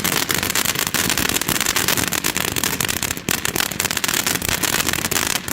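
A MagValue Vancation fountain firework spraying: a loud, steady hiss thick with rapid crackling pops.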